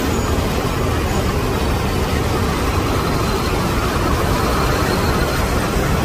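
Steady road traffic noise, engines and tyres blending into a constant wash with no single vehicle standing out.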